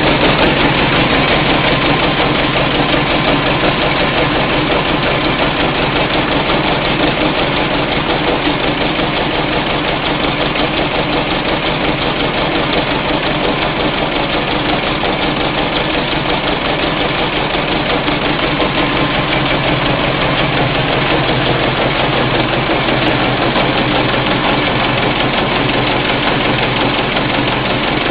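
Portable generator's engine running steadily at low speed, with an uneven, pulsing noise: a generator running slow and making a weird noise, the sign of a fault not yet named.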